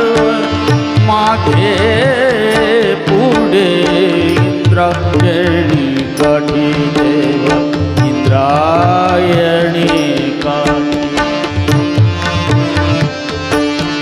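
Indian devotional abhang music: tabla strokes keep a steady rhythm under held harmonium notes, while a male voice sings wordless, gliding ornamented phrases that swoop up and down in pitch.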